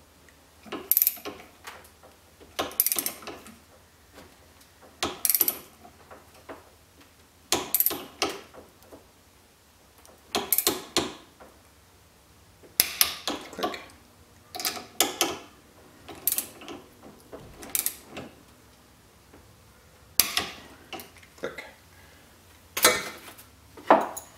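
Ratchet-head torque wrench on the connecting-rod cap nuts of a 1956 Ariel Square Four crankshaft, clicking in short bursts of rapid ratchet clicks about every two seconds. The nuts are being tightened toward 23 ft-lb.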